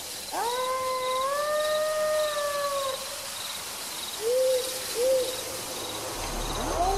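Crickets trilling steadily in a high, pulsing chirr. Over them come one long drawn-out call, rising then held, from about half a second in until about three seconds, and two short hoots a little after four and five seconds.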